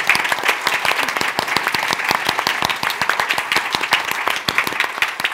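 Audience applauding, a dense crowd of clapping hands.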